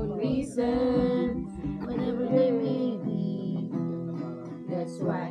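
Acoustic guitar being strummed, with a voice singing a melody along with it.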